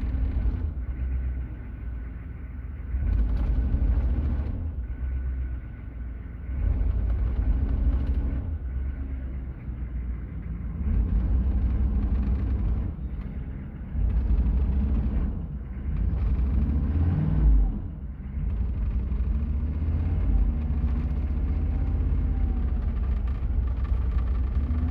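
6.5-litre V8 diesel engine running rough, swelling louder and dropping back every few seconds as it is revved and let fall to idle. It is slow to warm up, shakes, and idles rough with white smoke below 2,000 rpm.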